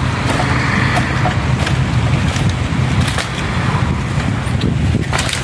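Wind buffeting the microphone: a steady low rumble, with a few light clicks and taps over it.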